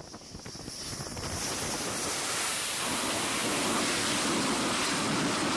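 A fighter jet's engine noise as it comes in to land on a carrier deck: a steady rushing that builds over the first two seconds and then holds.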